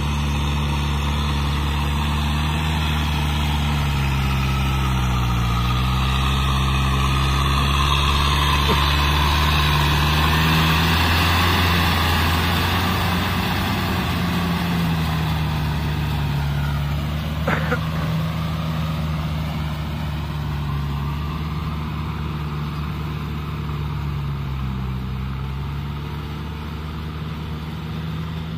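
Kubota tractor's diesel engine running steadily as it pulls a rotary tiller through flooded mud, its note dipping briefly twice. It grows louder as the tractor comes close and fades as it pulls away, with one short sharp sound a little past halfway.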